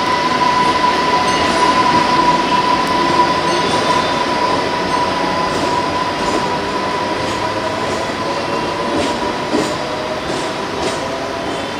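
Mumbai AC local electric multiple-unit train running along the track: a continuous rumble of wheels on rail with a constant high whine, easing off slowly.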